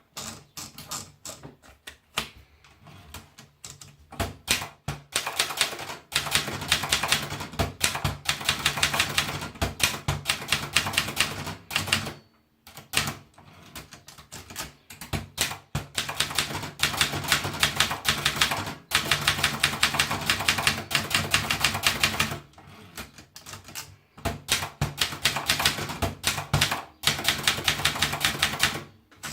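Brother Deluxe 220 typewriter being typed on: long runs of rapid key strikes with the typebars hitting the platen, broken by short pauses.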